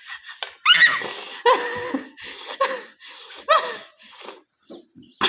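A person's voice: several short, breathy gasps and laughing sounds in a row.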